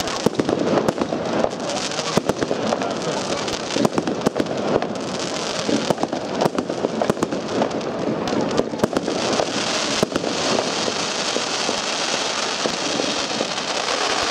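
Silver Barracuda firework cake firing a rapid string of aerial shots and bangs. Crackling bursts fill in about five seconds in and again through the last few seconds.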